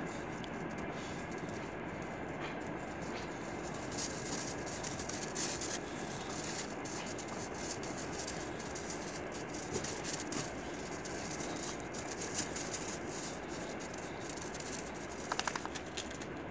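Two boxer dogs scuffling and running on crusted snow: irregular crunches and patters of paws over a steady background noise, with a quick rattle of clicks near the end.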